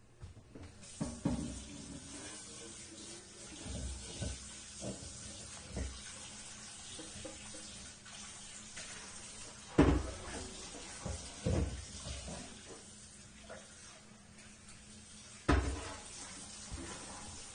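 Kitchen tap running into a sink while a frying pan is rinsed out, with a few clunks of the pan, the loudest about ten seconds in and another near the end.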